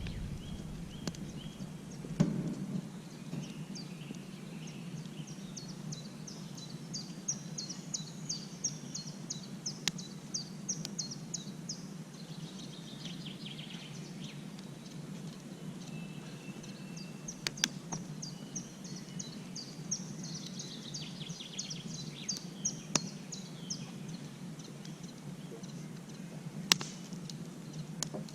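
A songbird singing rapid series of high chirps in two long runs, over a steady low outdoor background, with a few sharp clicks.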